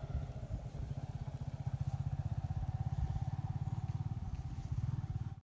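A small engine running steadily with a fast, even low putter, cutting off abruptly at the very end.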